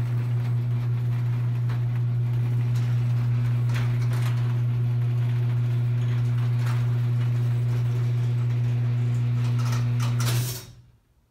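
Garage door opener motor running with a steady low hum as it lowers a sectional overhead garage door, with a few light clicks and rattles from the moving door. The motor stops about ten seconds in as the door closes.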